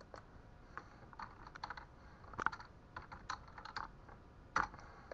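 Typing on a computer keyboard: a run of faint, irregular key clicks, with a couple of harder taps near the middle and towards the end.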